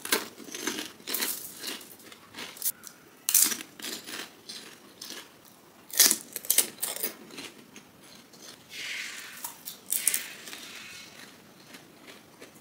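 Crisp pani puri (golgappa) shells crunching and crackling as they are bitten and chewed, in a string of separate crunchy bites with softer chewing between.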